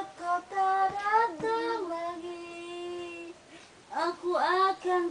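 A high voice singing a simple sing-song tune in held notes. There is a short pause about three and a half seconds in, then quick sliding notes.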